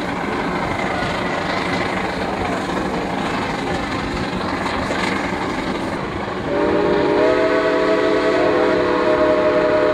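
Narrow-gauge steam locomotive and its cars running along the track with a steady rumble. About two-thirds of the way in, the steam whistle sounds one long chord-like blast.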